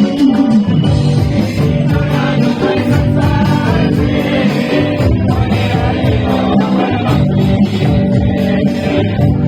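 Music: a group of singers performing a song with guitar accompaniment.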